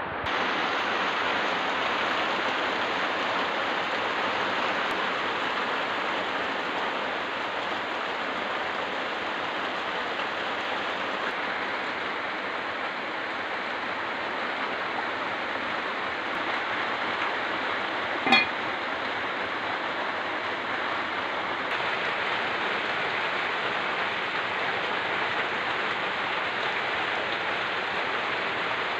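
Steady hiss of rain falling, with a single sharp knock about two-thirds of the way through.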